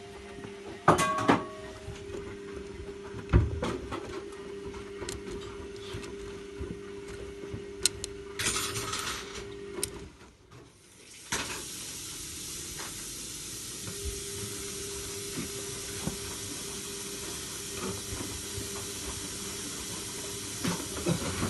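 A few knocks and clatters over a steady hum. About eleven seconds in, a steady rush of running water starts and carries on.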